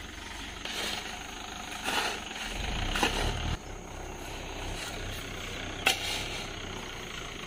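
Tractor engine idling with a steady low hum that swells for about a second midway, while a hoe chops and scrapes into wet sand, with a sharp strike near the end.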